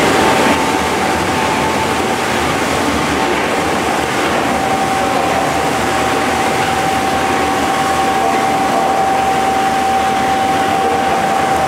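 Double-shaft shredder with two 30 kW electric gear motors running while shredding iron chips. It makes a loud, steady mechanical noise with a constant high whine.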